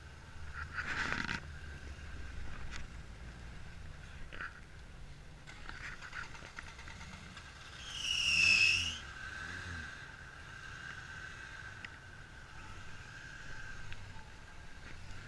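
Off-road truck engine running low and steady as the rig crawls through a mud obstacle, with a brief high squeal about eight seconds in that is the loudest sound.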